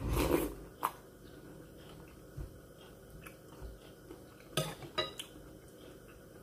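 Cutlery clinking and scraping against dishes during a meal: a clatter at the start, a sharp click about a second in, and a quick run of clinks near the end.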